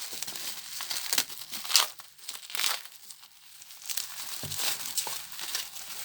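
Product packaging being handled and opened by hand: irregular crinkling and rustling with a quieter spell around the middle.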